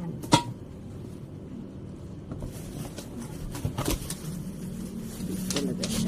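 A few sharp clicks and knocks, the loudest about half a second in and others around four and six seconds in, over a low steady hum.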